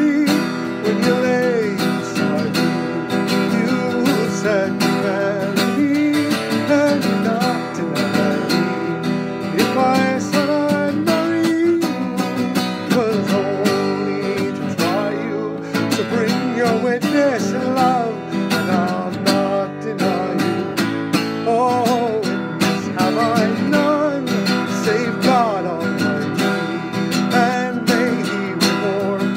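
Steel-string acoustic guitar strummed steadily in a folk song, with a man's voice singing along over it.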